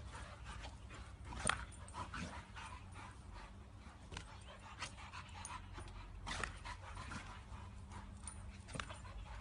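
Two dogs playing with a balloon: faint yips and panting with scattered short sharp taps, the loudest about a second and a half in, over a low steady rumble.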